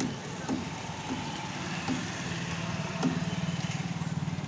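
A screwdriver clicking and knocking a few times against an e-rickshaw's plastic handlebar switch housing, over a steady, fast-pulsing engine drone that grows stronger about two seconds in.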